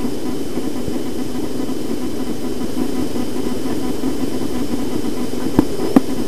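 Steady low droning hum with a hiss over it, and two short clicks close together near the end.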